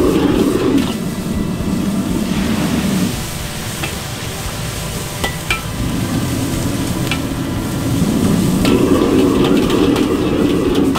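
Gas wok burner running hard under a wok, louder for the first second and again from about eight seconds in. Over it, a metal ladle clanks and scrapes against the wok as rice noodles are tossed and sizzle.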